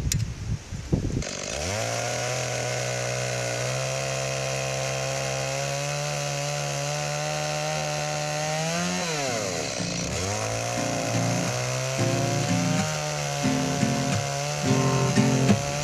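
Chainsaw starting up about a second in and running steadily while ripping a slab from a jarrah log. Its pitch sags and recovers about two-thirds of the way through as the cut loads it. Toward the end it runs unevenly.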